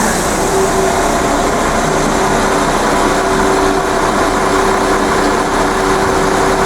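Diesel train standing with its engine idling: a steady hum with a few held tones.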